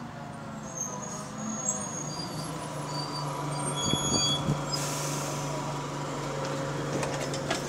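Go-Ahead London SE62, an Alexander Dennis Enviro200 single-deck bus, pulling in to a stop with its diesel engine running steadily at low revs and faint high brake squeals. There is a short hiss of air about five seconds in.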